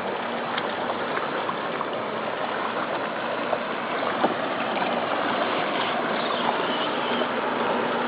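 Steady rush of water around a kayak under way, with a few faint small splashes or clicks.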